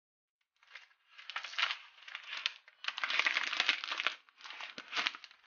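Crinkling and rustling of the protective wrap being pulled off a new iPad Pro, in about four crackly stretches.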